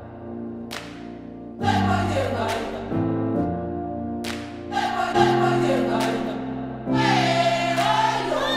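Background music: singing voices over slow, held chords that change every second or two, with sharp struck accents.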